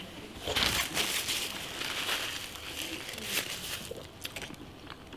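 Close crinkling and rustling, loudest in the first few seconds, over the mouth sounds of a bite of sourdough sandwich being chewed.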